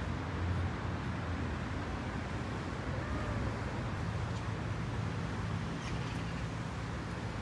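Steady low rumble of outdoor background noise, like distant traffic, with a faint short high call about three seconds in.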